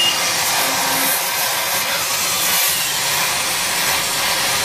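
Gas torch flame hissing steadily while it heats copper statue parts for brazing with a filler rod.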